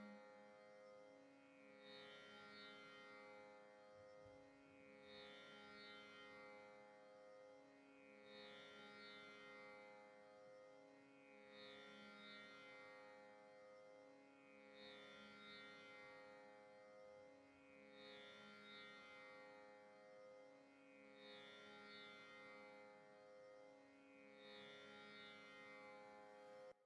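Tanpura drone, quiet and steady, its strings plucked in a cycle that repeats about every three seconds, then stopping abruptly.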